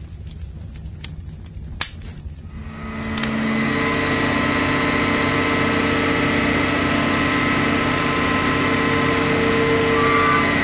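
A few sharp crackles and pops from a large building fire, then, a little under three seconds in, the loud, steady running of an Iveco skip-loader truck's diesel engine as it creeps slowly round a street corner.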